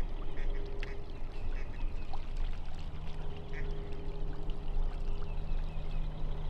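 Ducks quacking: short quacks at uneven intervals, several in the first two seconds and one more about three and a half seconds in, over a steady low hum.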